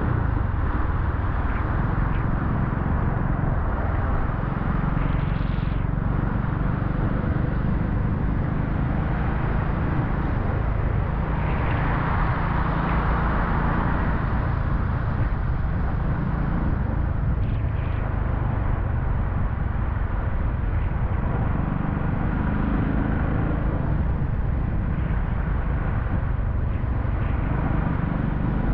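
Steady low rumble of a car on the move, engine and road noise, with a louder hiss swelling about twelve seconds in.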